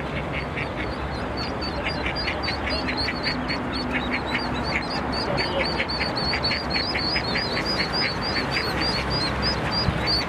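Ducklings peeping: a rapid, continuous string of thin high calls, several a second, with a hen duck quacking in quick runs among them.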